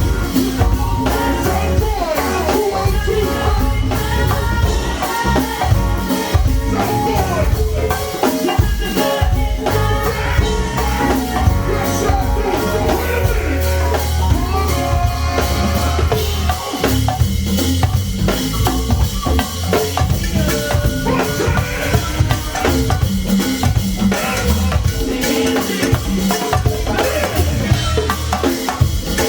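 Go-go band playing a groove, led by drum kit and percussion with a heavy bass line underneath.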